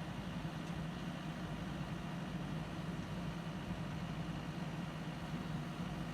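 CAT 416F backhoe loader's diesel engine idling steadily with an even, low hum.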